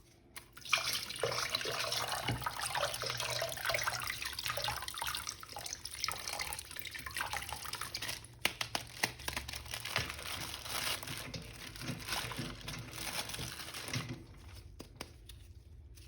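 Plastic toy packaging crinkling and rustling as it is opened and handled, with many small clicks; it quietens about fourteen seconds in.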